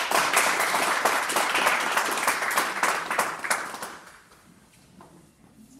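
Audience applauding, with many hands clapping, dying away about four seconds in.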